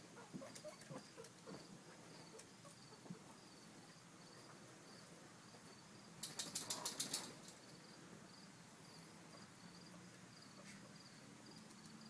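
Faint high-pitched chirp repeating steadily about three times a second, with a few soft ticks early on and a quick run of about nine sharp clicks a little past the middle.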